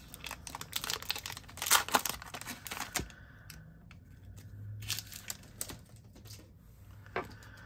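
Plastic wrapper of a Disney Lorcana booster pack being torn open and crinkled, a dense crackling through the first three seconds. It then gives way to sparser rustles and clicks as the stack of cards is pulled out and handled.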